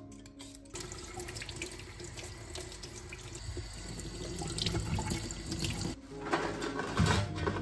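Kitchen tap running into a stainless steel sink while peeled potatoes are rinsed by hand under the stream. The water starts about a second in, and the splashing gets louder and more uneven near the end as the potatoes are turned in the flow.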